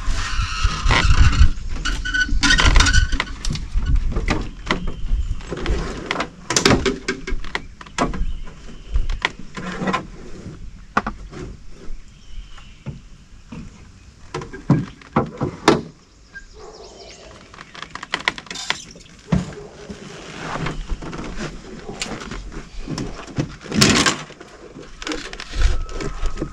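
Irregular knocks, clatters and thumps of someone shifting around and handling gear in a small fishing boat, with a low rumble during the first few seconds.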